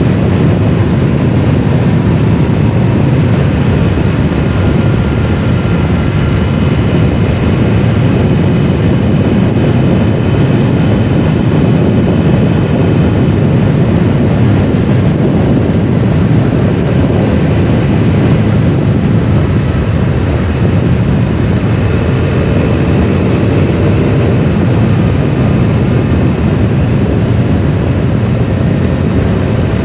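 Triumph Explorer 1200 motorcycle riding at steady speed: a loud, even rush of wind over the microphone, with the engine's note underneath shifting slightly in pitch.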